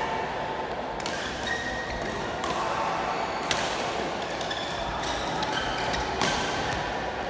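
Badminton rackets striking the shuttlecock during a doubles rally: several sharp hits a second or so apart.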